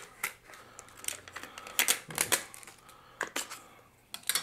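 Irregular sharp clicks and taps of hard plastic as a camera battery and its two-battery charger are handled and fitted together, about eight in all, with a quick pair just past the two-second mark.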